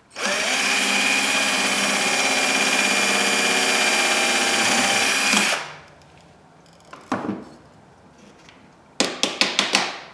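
Hitachi cordless drill running at a steady speed as it bores a hole through an acrylic sheet, carrying a clear steady whine; it stops about five and a half seconds in. A single knock follows, then a quick run of sharp clicks near the end.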